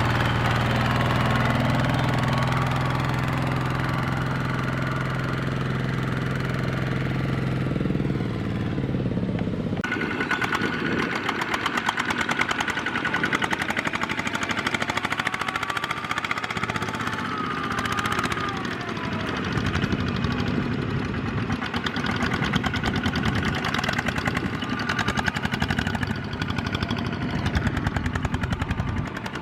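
Single-cylinder Kubota diesel engine of a small farm tractor running: a steady hum for the first several seconds, then from about ten seconds in a rapid, hard knocking beat.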